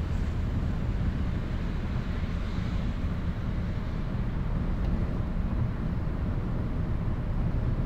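Steady low rumble of city street traffic, an even hum of ambient noise without distinct events.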